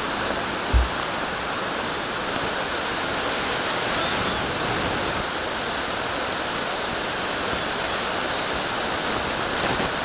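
Steady rushing of water from the Bhagsunag waterfall and its mountain stream, with a brief low thump about a second in.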